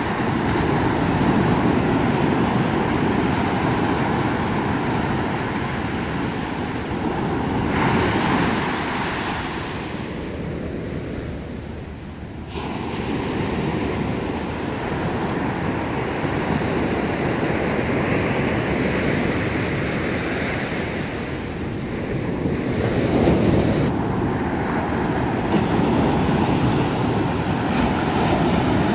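Big monsoon waves breaking and washing up a sandy beach, the surf swelling and easing with each wave.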